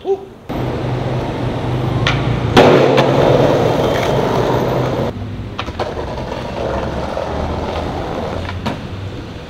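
Skateboard wheels rolling over concrete and brick paving, with a few sharp clacks of the board. The rolling noise gets louder about two and a half seconds in and drops back about five seconds in.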